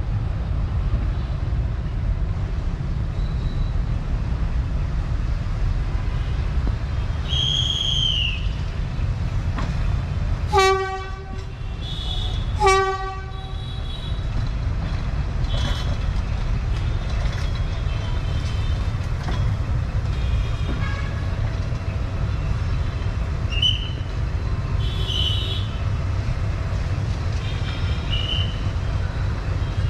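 GE D10E-250 diesel-electric locomotive running with a steady low rumble, sounding two short horn toots about two seconds apart roughly a third of the way in. A brief high squeal comes shortly before the toots.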